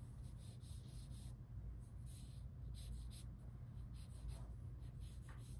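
Vine charcoal drawing on paper in short, quick strokes, with a couple of brief pauses, over a low steady hum.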